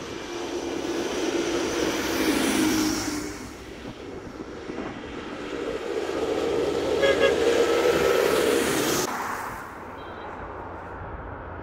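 Two tractors drive past close one after the other, a green Claas and then a red tractor. Each engine's drone and the tyres' hiss on the wet road swell and fade as it goes by, and the second pass is the longer and louder.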